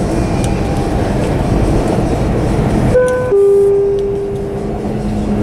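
Dubai Metro train running, a dense steady rumble heard inside the carriage. About three seconds in, the onboard public-address chime sounds two descending notes, a short high one and then a longer lower one that fades, the signal that comes before the next-station announcement.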